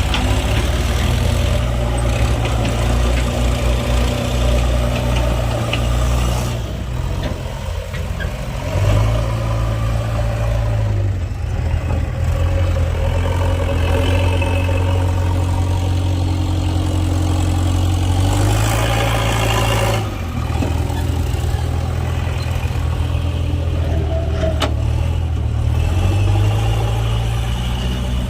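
Heavy diesel engine running under changing load, its low drone stepping up and down in pitch several times.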